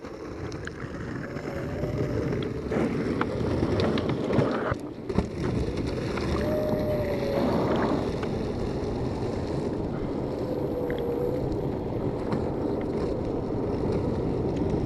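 Skateboard wheels rolling over rough asphalt: a steady rumble, with a few sharp clacks around three to five seconds in.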